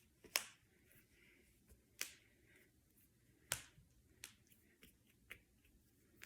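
Finger joints and knuckles being cracked: a series of six or seven sharp single pops at irregular gaps of half a second to a second and a half.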